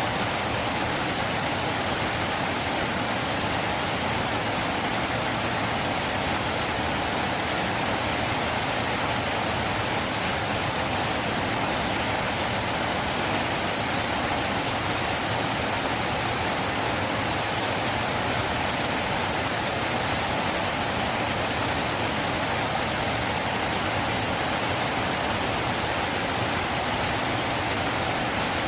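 River water flowing: a steady, unbroken rush that does not change.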